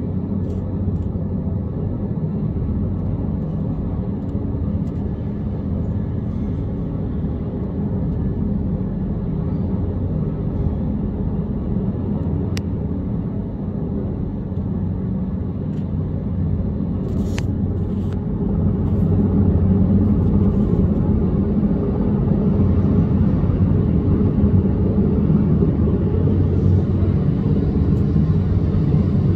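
Sikorsky S-64 Aircrane heavy-lift helicopter hovering: a steady low rotor beat over turbine noise, growing louder a little past halfway through.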